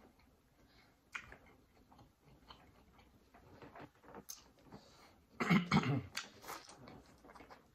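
Close-up eating sounds: quiet chewing, mouth smacks and small clicks, with a short cluster of louder bursts about five and a half seconds in.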